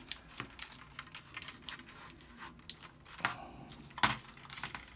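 Fingers pressing and rubbing putty tape down onto the flange of a plastic vent cover, with the paper towel underneath crinkling: scattered small rustles and clicks, with sharper taps a little past three and four seconds in.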